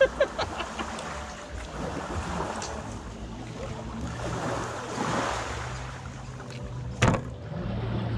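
Knife scaling and cleaning a weakfish, with a few quick scraping strokes near the start, over waves lapping at the shore, wind on the microphone and a low steady hum. A single sharp knock about seven seconds in.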